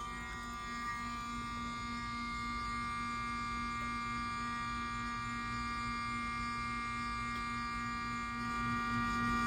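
Wheelock 7002T fire alarm horn strobe sounding a steady, unbroken buzzing horn tone, with a low rumble underneath; it grows a little louder near the end.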